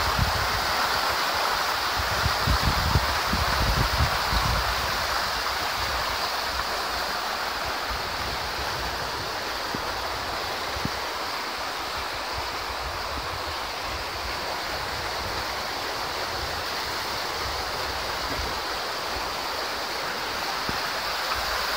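Fast mountain river rushing over rocks in white-water rapids: a steady, loud rush of water. Wind rumbles on the microphone in gusts, strongest in the first few seconds.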